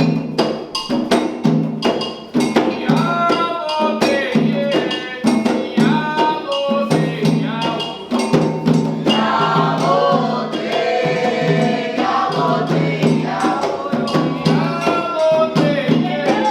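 Music: a steady low drone under a sliding melodic line, with regular percussion strokes about two to three a second.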